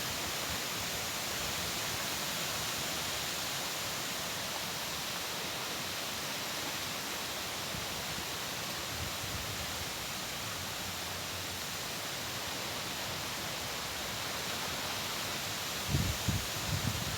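Steady rush of flowing water mixed with wind, an even noise with no distinct events. A few low rumbling gusts come in about a second before the end.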